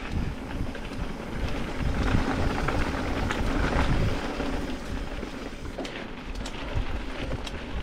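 Mountain bike riding down a dirt flow trail: tyres rolling and rattling over the ground, with scattered clicks and knocks and wind rushing over the microphone. It gets louder between about two and four seconds in.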